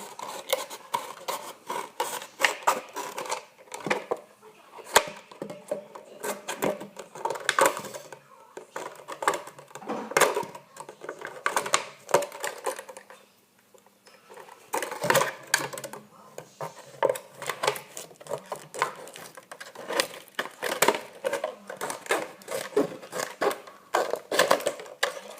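Thin plastic soda bottle crackling and clicking irregularly as it is handled and cut, with a brief lull about halfway through.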